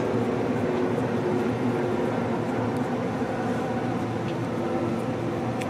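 Steady mechanical hum of nearby machinery or an idling engine, with a couple of faint clicks late on.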